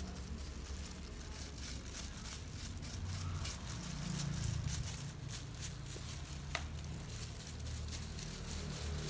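Soft crinkling and scratching as plastic-gloved hands work black dye through wet goat hair with a plastic comb, with a couple of sharper ticks partway through and a low hum underneath.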